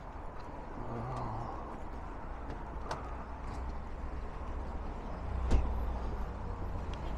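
Street ambience with the low rumble of road traffic and a few light clicks, and one sharp knock about five and a half seconds in.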